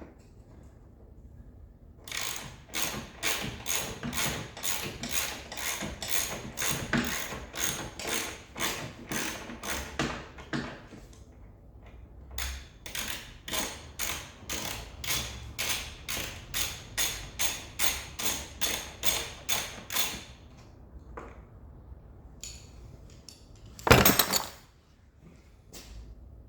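Ratchet wrench being worked back and forth to undo a suspension bolt, clicking in steady strokes about three a second in two long runs with a pause between. A short, loud burst of noise follows near the end.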